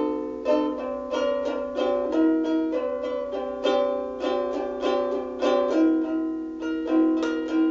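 Solo ukulele playing an instrumental passage: plucked chords and notes in a steady rhythm, about two or three strokes a second.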